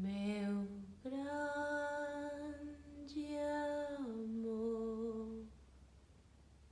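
A woman's unaccompanied voice holds three long notes without words: a short low note, a long higher note, then a step down to a closing note that fades out about five and a half seconds in.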